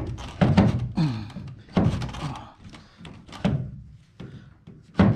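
Plastic light housing being pushed and knocked back into its place on a pickup truck: a series of irregular thunks and knocks, several in the first two seconds, a couple more about three and a half seconds in, and a sharp one near the end as it seats.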